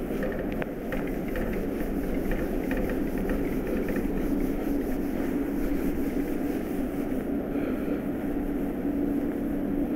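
A felt duster rubbing across a whiteboard in repeated wiping strokes, over a steady low hum.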